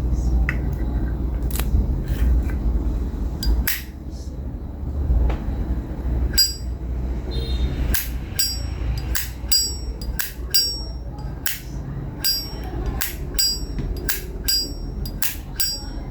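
Vintage 1958 Zippo lighter's hinged lid being flicked open and snapped shut over and over: sharp metallic clicks with a bright ring. The clicks are sparse at first, then come steadily, about one or two a second, from about six seconds in.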